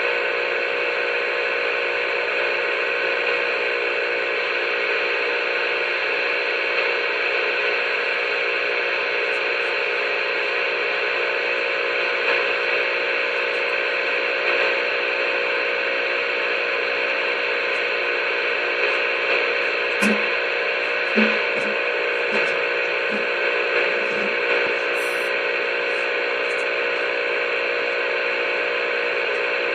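CB radio receiver hissing with a steady keyed-up transmission: an unbroken wash of noise with several humming tones, and no voice. A few faint clicks and short low blips come about two-thirds of the way through.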